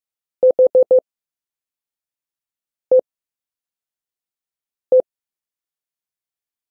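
Morse code played as short beeps of one steady tone: four quick dits (the letter H), then a single dit (E) about two seconds later and another single dit two seconds after that.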